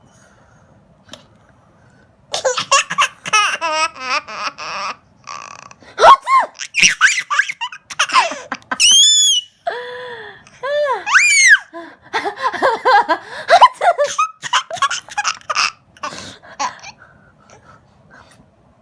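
Laughter in repeated fits, with sharp high squeals of laughter in the middle, starting after about two seconds of quiet and dying away near the end.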